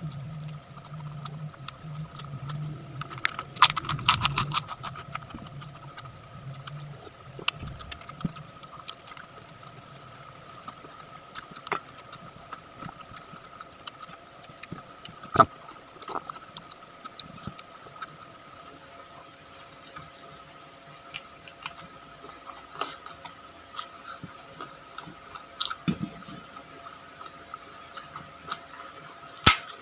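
Close-miked eating sounds: chewing and biting, with scattered sharp clicks and smacks, a quick cluster of them about four seconds in. A faint steady hum runs underneath.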